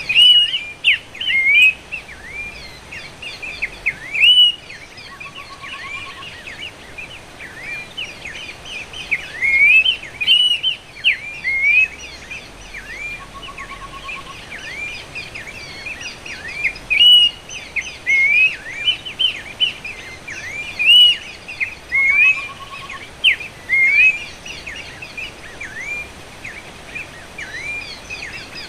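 Recorded calls of a Horsfield's babbler (pelanduk semak) played as a lure: repeated phrases of clear whistled notes sweeping up and down, coming every couple of seconds. A short low trill recurs about every eight seconds, as in a looped recording.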